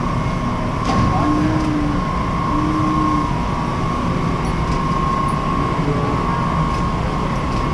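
Electric scooter running, its motor giving a steady whine over low rolling rumble, with a lower hum that comes and goes a few times.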